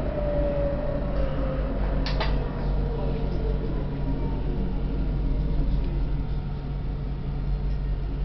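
Tram heard from inside the front of the car, its motor whine falling in pitch as it slows into a stop over a steady low rumble. A single sharp click comes about two seconds in.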